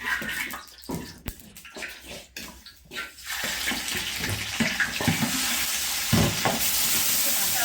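Kitchen work: a few light knocks and clicks of utensils, then a steady hiss that starts about three seconds in and grows stronger near the end, like water running into a sink or oil sizzling in a pan.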